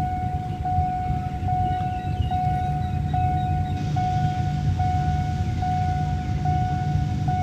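Railway level-crossing warning signal sounding: one steady high tone, cut by a short break about every 0.8 seconds, over a low rumble.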